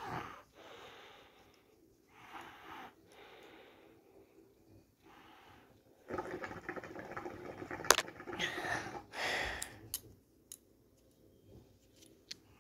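Handling noise of a mobile phone being turned over in the hand: rubbing and scraping in uneven stretches, busiest in the second half, with a few sharp plastic clicks.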